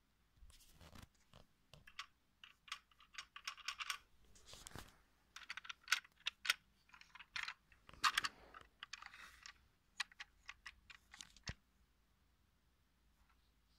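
Plastic Lego bricks of a small brick-built model clicking and clattering as it is handled, in irregular bursts of quick sharp clicks.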